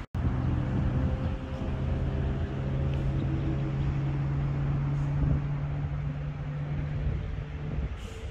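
A steady low engine hum holding one pitch, over wind noise on the microphone; the hum drops away about eight seconds in.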